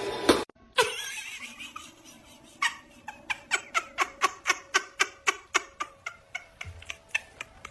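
A rapid run of short, evenly spaced vocal sounds, about four a second, starting a couple of seconds in and fading near the end.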